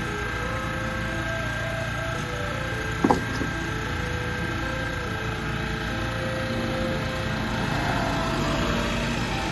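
Small engine of an asphalt-emulsion sprayer running steadily, with one sharp clack about three seconds in.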